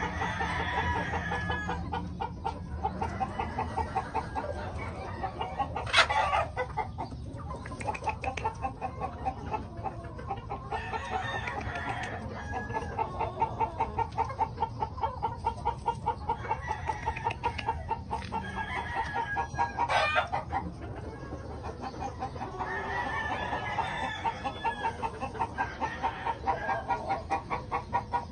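Kelso gamefowl chickens clucking in a quick, pulsing run of calls, with a rooster crowing now and then. Two sharp knocks stand out, about six seconds in and again about twenty seconds in.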